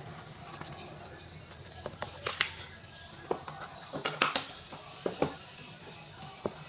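Handling noises of an unboxing: short crinkles and taps, a burst a little over two seconds in, a cluster around four seconds in and a few single ticks later, over a faint steady high whine.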